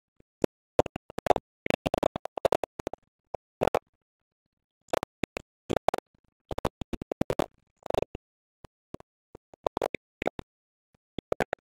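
Background music track laid over the footage, coming in short chopped bursts with scratching effects, broken by gaps of silence.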